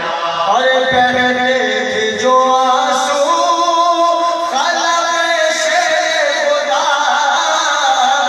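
Male voices reciting a marsiya, an Urdu elegy for Imam Husayn, in a slow, drawn-out melodic chant without instruments, with new phrases starting about half a second in, midway and near the end.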